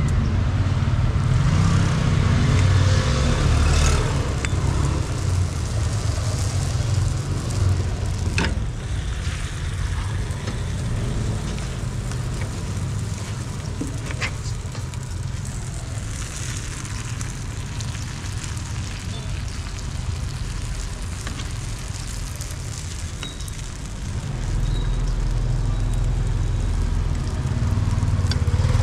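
Street traffic rumbling steadily, louder in the first few seconds and again near the end. A couple of sharp clicks come from a metal ladle striking the aluminium pot while it stirs waffle batter.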